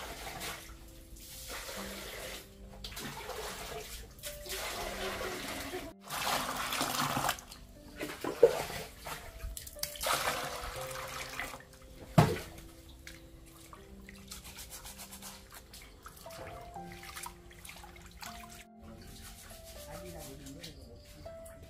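Water pouring and splashing in several bursts of a second or two, with a couple of sharp knocks, over soft background music.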